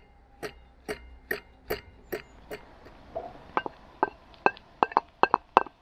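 Knife slicing porcini mushrooms, each cut a sharp tap on the board: an even run of about two and a half cuts a second, then quicker, less regular chopping in the second half.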